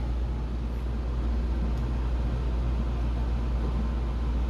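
Steady low-pitched hum or rumble, unchanging throughout.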